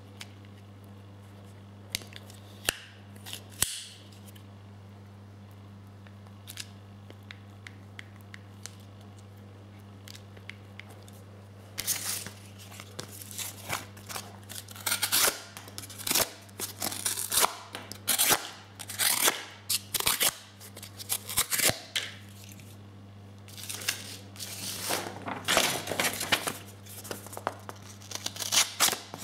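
Gerber Bear Grylls folding sheath knife cutting cardboard in a long run of short scraping strokes, starting a little before halfway, then slicing through paper near the end. A few sharp clicks come in the first few seconds, and a steady low hum runs underneath.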